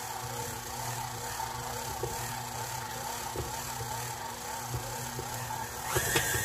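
KitchenAid Artisan stand mixer running, its dough hook kneading pizza dough: a steady motor hum with occasional light knocks. Near the end the speed is turned up and the sound jumps louder, adding a higher whine and a quick run of knocks.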